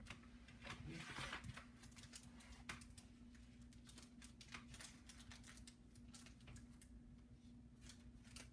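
Near silence: faint scattered clicks and taps over a steady low hum.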